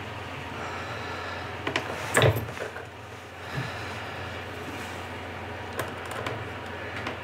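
Handling noises from hands working on a balsa-and-plywood RC model airplane's nose: a few knocks and clatters, the loudest cluster about two seconds in, over a steady low hum.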